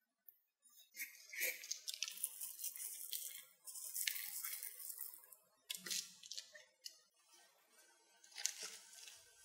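Kitchen handling noises: irregular bursts of crinkling and rustling, with a sharp click about six seconds in and a quieter stretch before a last burst near the end.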